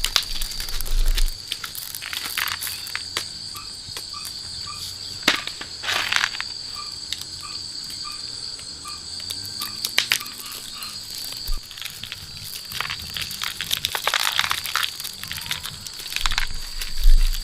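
Insects droning at a steady high pitch, with a short run of evenly repeated chirps in the middle. Scattered crunching and crackling handling noises come and go throughout.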